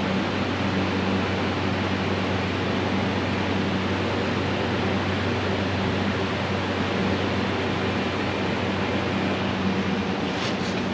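Steady even rushing noise with a low hum, like a shop fan running, with a few light clicks near the end.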